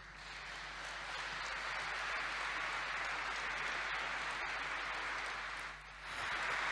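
Audience applauding, steady throughout, with a brief dip near the end before the clapping picks up again.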